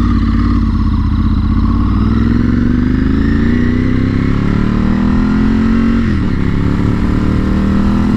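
Ducati 996 L-twin engine under way on the motorcycle, its pitch climbing slowly for several seconds, dipping briefly about six seconds in, then holding steady. The bike still falters under hard throttle, a fault the repair did not cure.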